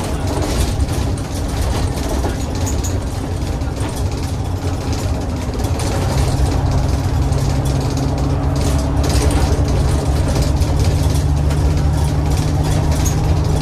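Cummins ISBe diesel engine of a single-decker bus running steadily, with small rattles and clicks throughout; about six seconds in the engine note changes and gets a little louder.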